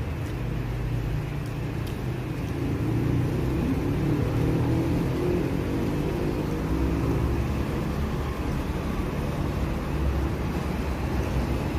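A motor vehicle's engine running, a steady low rumble that grows louder about three seconds in.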